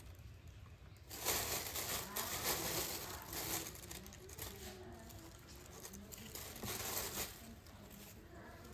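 Thin plastic grocery bags rustling and crinkling as vegetables are handled and pulled out of them, loudest from about a second in to nearly four seconds in, then lighter rustles.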